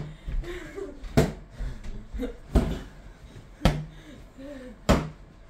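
Inflated rubber balloons being batted by hand: five sharp smacks about a second apart, each with a short hollow ring.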